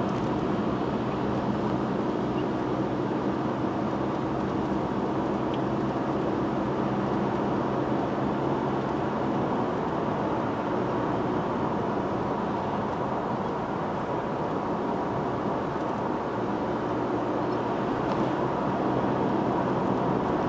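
Steady road and engine noise of a car driving at city speed, heard from inside the cabin.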